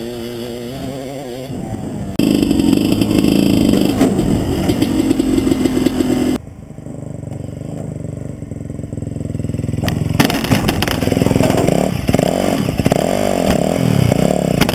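Motocross dirt bike engines revving up and down on a track, with sudden jumps in loudness about two seconds in and again at about six and a half seconds.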